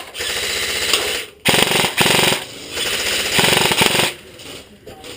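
Airsoft gun firing long bursts of rapid full-auto fire, several bursts in a row that stop about four seconds in.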